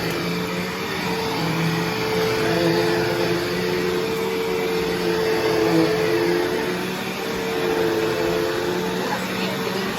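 Bissell CleanView Revolution Deluxe upright vacuum running with a steady motor hum that swells and eases every few seconds as it is worked.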